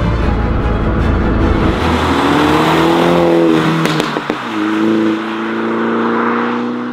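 MINI fitted with the valved JCW Pro exhaust accelerating, over background music. Its exhaust note rises and then falls about three seconds in, there is a single sharp crack near the middle, and then the note climbs steadily again.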